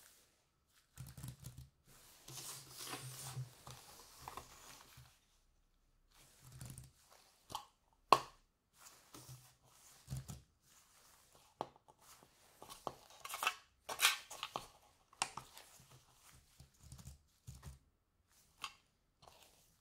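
Hands rustling and crinkling a plastic yogurt cup and its foil lid, crackling for a few seconds at the start, then a series of sharp clicks and knocks as items are set down and handled on a hard table, the loudest about eight seconds in.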